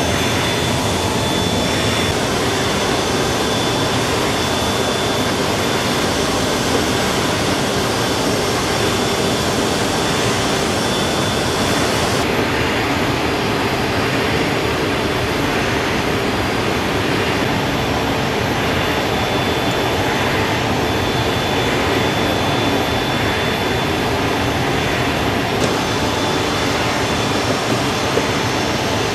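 Jet aircraft turbine noise running steadily: a loud, even rush with a thin high whine. The highest hiss dulls from about a third of the way in until near the end.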